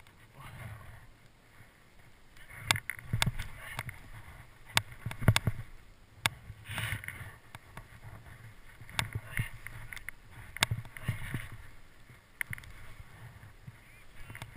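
Skis sliding and scraping on steep snow in a run of turns, a swell of swishing noise every second or two, with sharp clicks and knocks in between.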